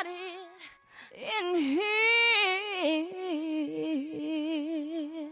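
Solo female singing voice on the soundtrack, holding long notes with a wide vibrato and a short break about a second in, with no beat behind it.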